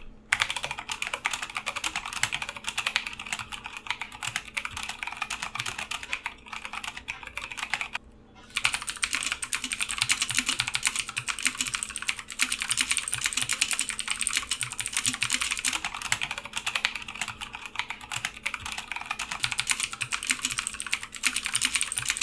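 Rapid typing on two mechanical keyboards in turn for a sound comparison: one with clicky blue switches (Kailh blues), the other the Velocifire T11 with brown tactile switches. There is a short break about eight seconds in, where one keyboard gives way to the other.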